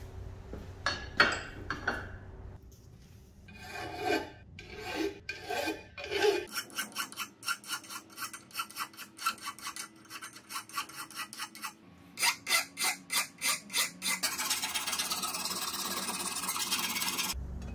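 Hand file rasping across the edge of a cast metal part of an old clothes iron held in a bench vise, in quick back-and-forth strokes about three a second that run together into a steady rasp near the end. A few sharp knocks come before the filing starts.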